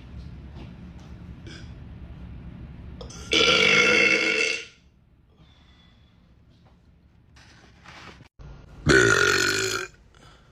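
A man belching twice, two loud, drawn-out burps of over a second each, the second about five seconds after the first.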